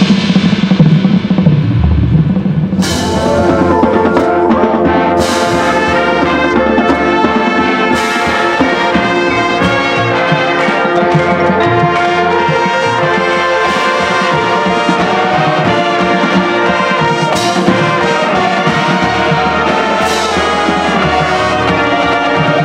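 Marching band playing: low drums alone for about the first three seconds, then the full brass section comes in on sustained chords over percussion. Sharp accented hits mark the phrases every few seconds.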